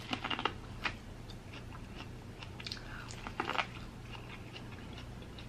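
Biting and chewing boiled corn on the cob close to the microphone: a cluster of crisp crunches right at the start, another about three and a half seconds in, with scattered quieter chewing clicks between.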